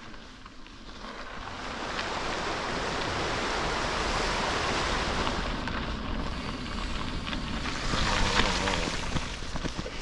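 Wind rushing over the microphone of a camera on a moving bicycle, with tyres rolling on a gravel road. It builds over the first second or two, swells about eight seconds in, and a few short knocks come near the end.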